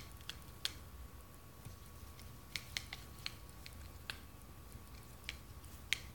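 Toco toucan clicking its bill: about a dozen sharp, scattered clicks, the loudest near the end.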